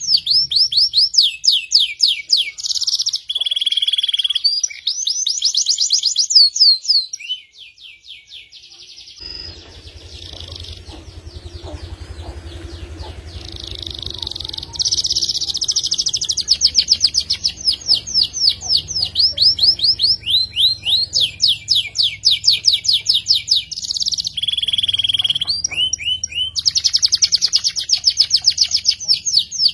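F2 YS canary singing in long, rapid trills of repeated sweeping notes, high and sharp. The song drops away for a few seconds about a quarter of the way in, then comes back strongly and runs on in long trilled phrases.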